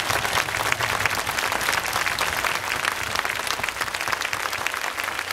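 A crowd applauding, with many hands clapping steadily.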